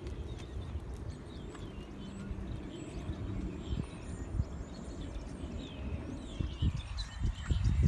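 A horse trotting on arena sand: dull, soft hoofbeats over a low rumble, with a few louder thuds near the end. Small birds chirp in the background.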